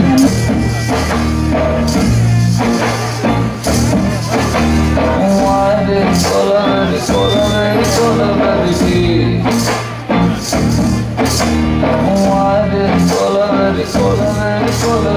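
Loud dance music with singing over a steady beat.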